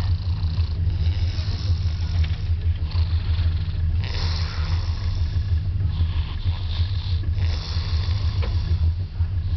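A man snoring with his mouth open, a rasping breath every two to three seconds, over the steady low rumble of a moving train.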